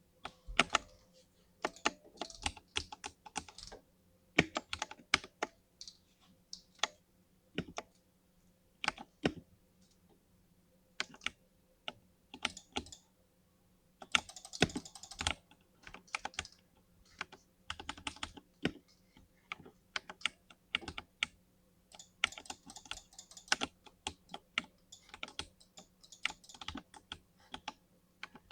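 Typing on a Tech Utopia gaming keyboard with linear switches: irregular runs of key clicks with short pauses between them, and a couple of quicker, denser flurries partway through.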